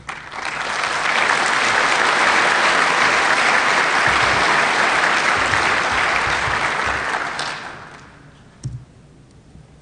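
Audience applauding: the clapping swells within the first second, holds for about seven seconds, then dies away.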